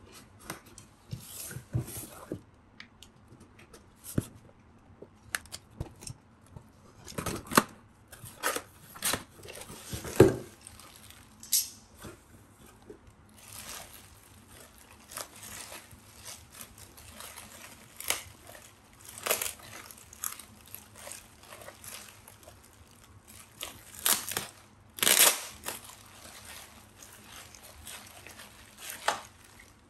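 Irregular handling sounds from tools and parts being picked up and set down: scattered sharp clicks and taps with brief crinkling, the loudest clicks about ten seconds in and again near twenty-five seconds.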